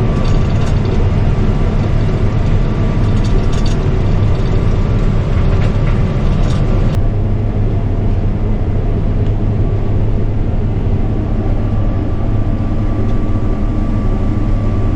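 Steady drone of a heavy diesel vehicle engine heard from inside its cab, with scattered rattles in the first half. About halfway the higher hiss drops away abruptly and a steady low hum carries on.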